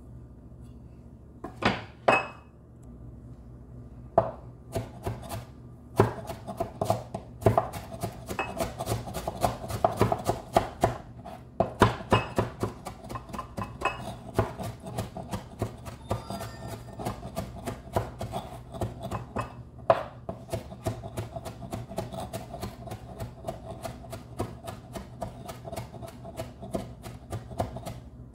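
Cleaver chopping red onion on a wooden cutting board. Two strokes come near the start, then from about four seconds in a fast, steady run of chopping strikes, several a second.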